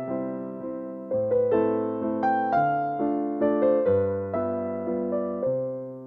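Background piano music: a gentle melody of struck notes that fade, over low chords that change every second or so.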